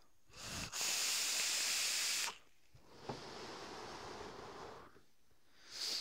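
A long drag on a vape with a dripping atomizer and a freshly juiced cotton wick: about two seconds of loud, even hiss as air is drawn through the firing atomizer. A softer, breathy hiss follows for about two seconds, then a short puff near the end as the vapour is breathed out.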